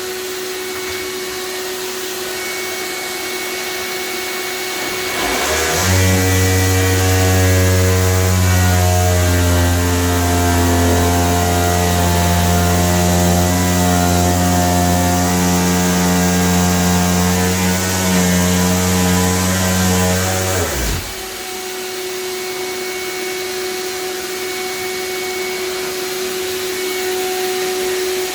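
A vacuum cleaner runs steadily with a thin whine, used to catch dust during the installation work. About five seconds in, a louder, deeper-running power tool starts and runs steadily for about fifteen seconds, then stops abruptly, leaving the vacuum running alone.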